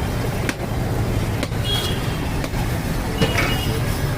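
Steady low rumble of road traffic on a busy street, with a few faint short knocks about once a second.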